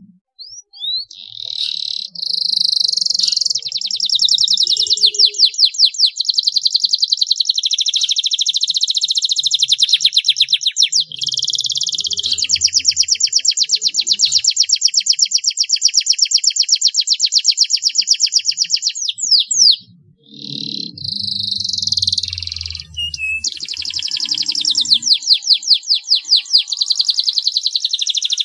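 Domestic canary singing a long, loud song of rapid rolling trills, phrase running into phrase. It breaks off briefly about two-thirds of the way through, then starts again.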